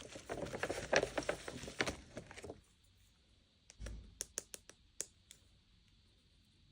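Toy packaging crinkling and rustling as it is handled, then a few sharp, separate clicks of small plastic parts.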